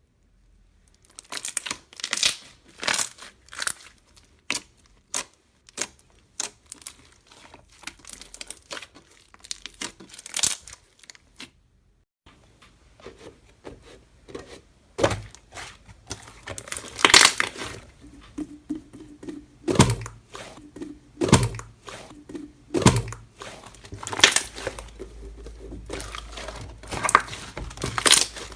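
Slime being pressed, stretched and poked by hand, giving irregular sticky crackles and pops. It pauses briefly about 12 seconds in, then goes on with louder pops.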